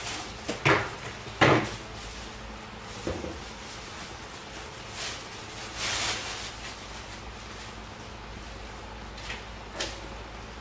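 Household objects being handled and set down: a few sharp knocks and clatters in the first second and a half, the second the loudest, a softer knock about three seconds in, then rustling swishes, the longest about six seconds in, and two light clicks near the end.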